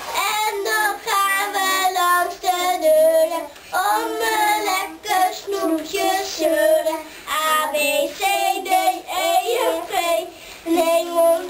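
Young children singing a song together: a Sint Maarten lantern song sung for treats at the door.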